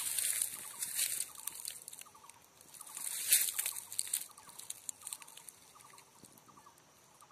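Rustling and crackling of dry leaves and twigs, loudest about three seconds in and fading after, with faint bird calls in the background.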